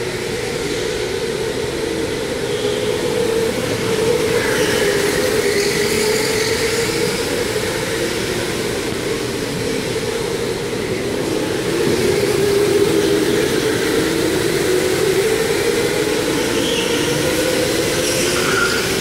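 Electric go-kart motors whining as several karts race around an indoor track, their pitches rising and falling as they speed up and slow, over a steady hiss.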